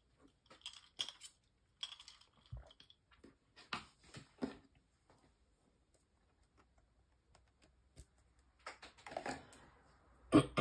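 Scattered light clicks and taps of stationery being handled at a desk, as a pen and planner pages are used, with a soft papery rustle near the end.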